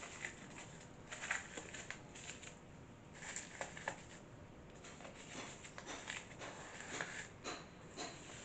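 Faint crinkling of cling film stretched over a plastic bowl as it is handled, with scattered light clicks and knocks.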